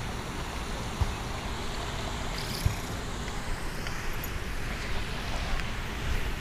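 Steady low outdoor background rumble, with two small knocks about one and two and a half seconds in.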